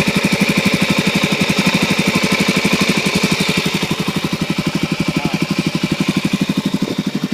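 2006 Suzuki DR-Z400S's single-cylinder four-stroke engine idling steadily through an FMF Powercore 4 slip-on exhaust, a fast, even beat of exhaust pulses. It drops a little in level from about four seconds in.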